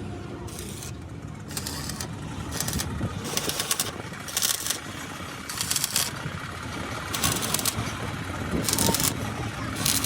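Repeated scraping strokes on metal, each about half a second long and roughly one every one and a half seconds, over a steady low rumble of traffic.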